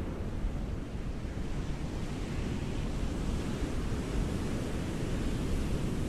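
Ocean surf washing onto a beach: a continuous rushing wash of waves that grows brighter and hissier through the second half as a wave breaks and spreads.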